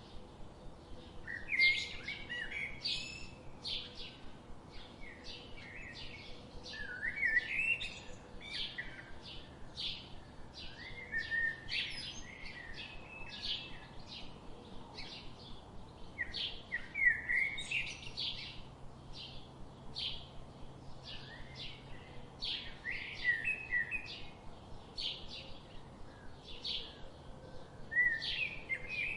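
Birds chirping in quick, overlapping short high calls and twittering phrases, with no break.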